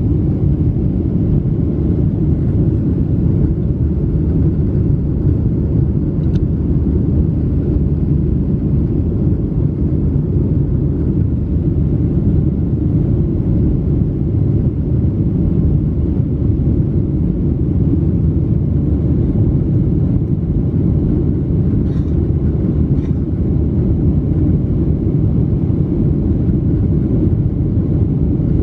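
Steady low roar of engine and airflow noise inside the passenger cabin of a Boeing 737-700 in flight, heard from a window seat by the wing. A couple of faint clicks can be heard in the cabin.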